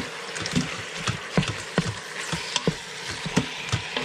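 Wooden spoon stirring cubed raw chicken in the stainless steel inner pot of an Instant Pot on sauté, knocking and scraping against the pot two or three times a second over a steady sizzle.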